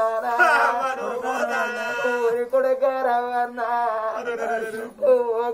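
A singing voice performing a drawn-out, wavering chant-like melody in Telugu Oggu Katha folk-narrative style, with short breaks a little past two seconds in and near the end.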